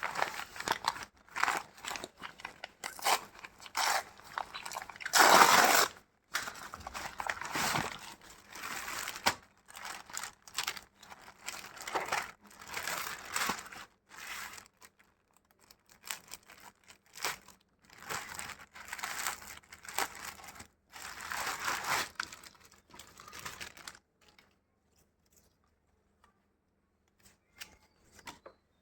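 Packaging being torn open and crinkled by hand, in irregular rustling bursts with the loudest about five seconds in. The rustling stops well before the end, leaving only a few faint ticks.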